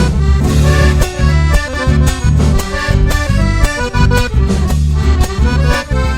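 Instrumental gato dance music led by accordion, over a steady bass line and beat.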